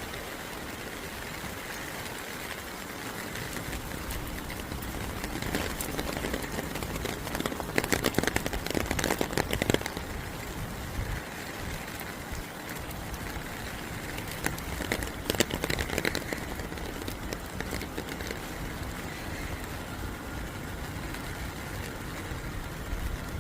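Rain falling: a steady hiss of rain with two spells of dense, closely spaced drip impacts, about a third of the way in and again past the middle.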